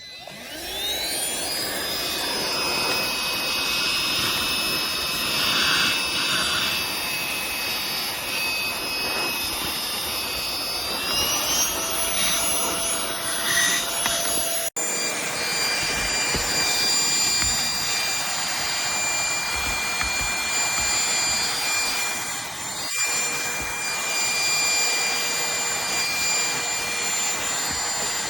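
Aspiron cordless handheld vacuum's motor spinning up to a steady high whine, stepping up in pitch about eleven seconds in and running on steadily, with a brief dropout midway.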